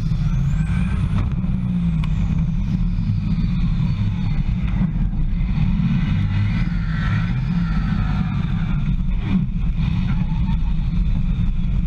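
Inside the cab of a racing truck: a steady low engine drone and cab rattle as the truck spins off at the last corner, with a knock about nine seconds in.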